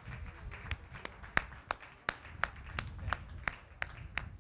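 Hand clapping from one or a few people, sharp even claps at about three a second, starting just under a second in and stopping near the end.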